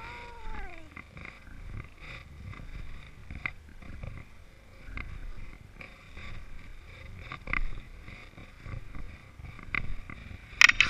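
Footsteps crunching through snow over a low, steady rumble of wind and camera movement, with a loud crunch near the end. Near the start there is a short whine that rises and then falls in pitch.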